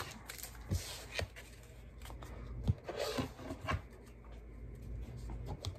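Hands handling trading cards: soft rustling and scattered light taps, with a short scuffing rustle about three seconds in.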